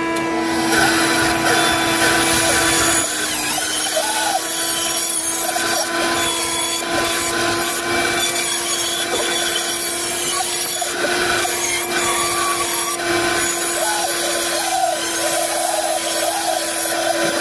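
Bandsaw running and cutting a wooden board along a curved template line, a steady motor hum under the continuous noise of the blade in the wood.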